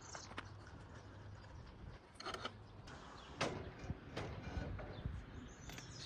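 A few short knocks and clanks as the condenser and the ladder-crane hoist are handled at the top of the ladder, over a faint low hum.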